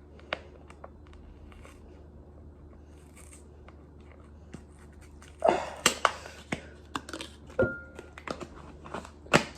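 Kitchen packaging being opened: scattered clicks and knocks, then a burst of crinkling and tearing about halfway through, and a sharp click near the end.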